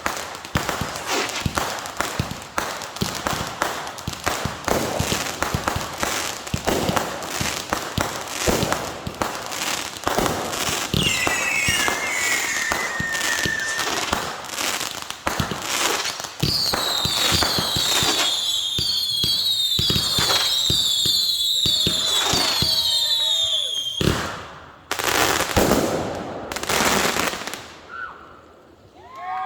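Consumer fireworks going off in rapid succession: dense crackling and bangs, then a run of many short falling whistles, and a few last loud bursts near the end.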